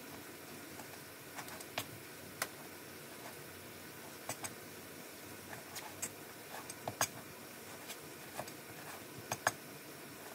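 Scattered light clicks and taps from kitchen items being handled, over a steady low hiss. They come irregularly, a few close together around the middle, with the loudest pair of taps near the end.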